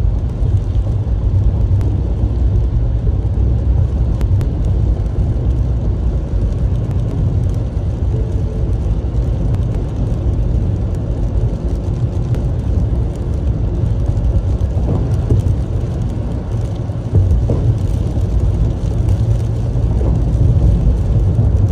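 Car driving on a rain-soaked freeway, heard from inside the cabin: a steady low rumble of the engine and tyres on the wet road.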